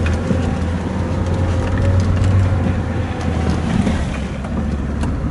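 Steady low rumble of a car's engine and tyres, heard from inside the cabin while driving on a rough, wet dirt road, with a few faint knocks.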